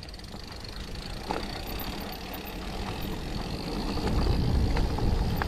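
Mountain bike rolling fast down a gravel trail: tyres crunching over loose gravel, with a deep wind rumble on the microphone that grows louder about two-thirds of the way in as speed builds. A few sharp clicks from stones or the bike's chain come through.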